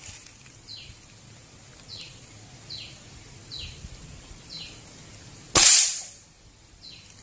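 A single shot from a Precihole NX200 Athena break-barrel air rifle about five and a half seconds in, the loudest sound: a sharp crack together with the pellet striking the steel plate target, dying away over about half a second. Before it, a bird repeats a short falling chirp roughly every three-quarters of a second.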